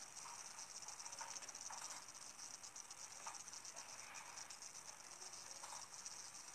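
Near silence with a faint, steady high-pitched chirring that flutters rapidly, and a few faint short blips.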